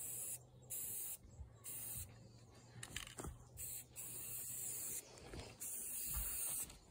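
Aerosol spray-paint can spraying onto the ground in repeated hisses, each about half a second to a second long, with longer sprays near the end, marking out where to dig.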